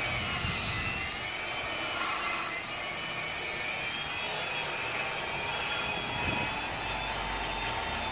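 Electric rotary buffer with a round buffing pad running steadily, its motor giving a whine that wavers a little in pitch as the pad is pressed on. It is buffing cured 2K urethane paint on a scooter body panel.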